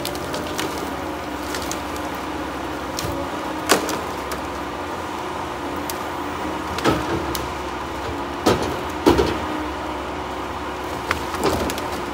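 Tigercat 234B knuckleboom log loader's diesel engine running steadily as it swings a grapple of pine logs, with about five sharp knocks of logs clunking against one another and the stack, the loudest about nine seconds in.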